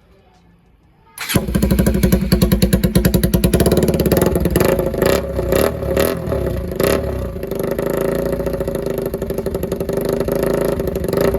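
A Bajaj Pulsar NS200's single-cylinder engine starts about a second in and runs loud through only the aftermarket bend pipe, with no silencer fitted. It is blipped a few times through the middle, then settles to a steadier idle.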